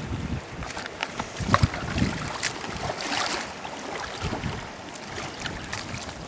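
Strong wind buffeting the microphone in uneven gusts, with a few short knocks about a second and a half in.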